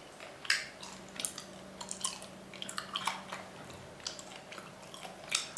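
Close-up wet chewing of meat: irregular soft clicks and smacks of a mouth working a tough bite.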